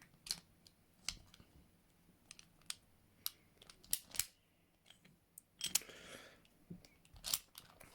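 Scattered small metallic clicks and clacks from a four-lever Belfry padlock being worked by hand, with a brief rasp about six seconds in.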